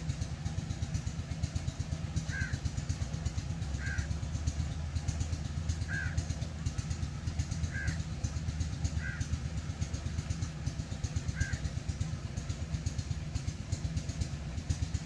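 A small engine running steadily with a low, fast chugging throb. Over it a crow gives short caws about every one to two seconds.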